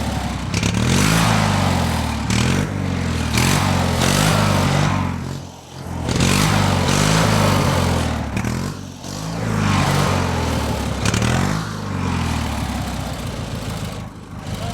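An engine being revved again and again, its pitch rising and falling about once every second or so with a couple of brief drops, then running steadier near the end.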